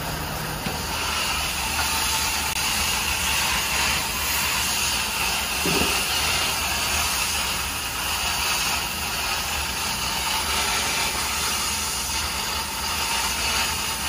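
Large steel cauldron of water at a rolling boil, giving off a steady hiss of steam.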